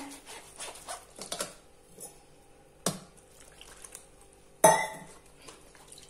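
Metal spoon pressing and scraping carrot pulp through a plastic mesh strainer, with two sharp clicks of the spoon on the strainer, the second louder, about three and about four and a half seconds in.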